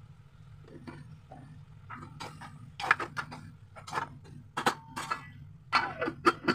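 A spatula stirring okra in a non-stick kadai, clacking and scraping against the pan from about two seconds in, with a steel lid clinking onto the pan near the end. A low steady hum runs underneath.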